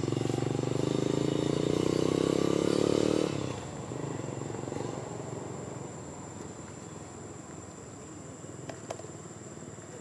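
A motor vehicle engine running with a steady note, cutting off abruptly about three seconds in. After that a thin steady high tone goes on, with a couple of light clicks near the end.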